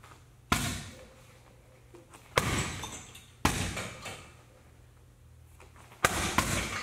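Kicks landing on a heavy punching bag: four sharp thuds one to two seconds apart, each echoing briefly in the room, with a second hit close behind the last one.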